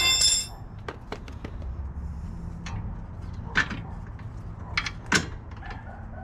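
A Ryobi cordless power tool whines briefly, spinning a nut off the 22 mm strut-to-knuckle bolt on the car's front strut. It is followed by light metal clinks and knocks as the loosened bolts are worked out by hand.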